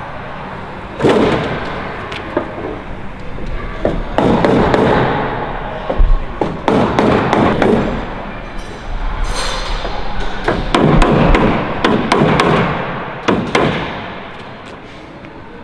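Irregular knocks, taps and clatter of hand work on a Lancaster bomber's riveted metal airframe at the rear turret, easing off near the end.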